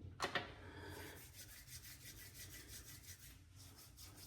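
Quick, even rubbing strokes over three days of beard stubble, with two sharp clicks just after the start.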